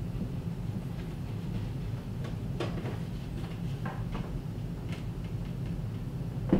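A steady low hum, with a few faint clicks and taps of hands working the TV wall mount's metal brackets and screws, and a sharper knock near the end.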